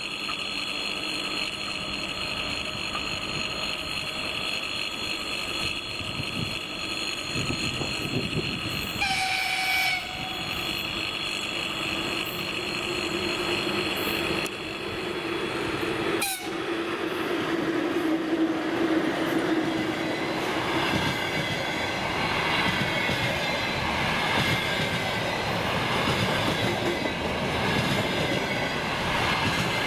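VL11 electric freight locomotive and its container train running through a station: one short horn blast about nine seconds in, then the rolling noise and rhythmic wheel clatter of the wagons growing louder through the second half.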